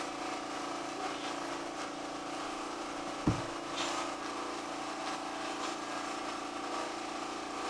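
Steady mechanical hum of a running machine in the room, holding a few fixed pitches, with one soft thump about three seconds in.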